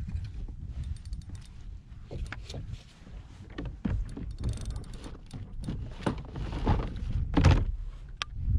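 Irregular knocks and thumps on a fishing kayak over a steady low rumble, the loudest thump about seven and a half seconds in.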